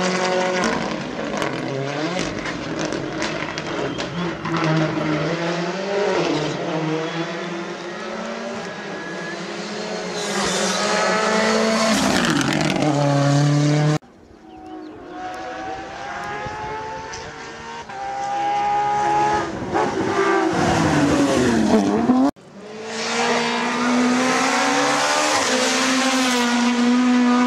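Rally cars driving flat out on a tarmac stage: engines revving high, with pitch rising through the gears and dropping as each car brakes and passes. The sound cuts off abruptly twice, about halfway through and again near the three-quarter mark, as one car gives way to the next.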